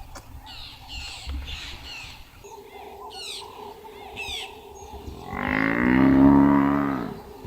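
Small birds chirping in quick, repeated falling notes, then a wounded buffalo bull gives one long, low bellow under lion attack, lasting about two seconds and dropping in pitch at the end. The bellow is the loudest sound.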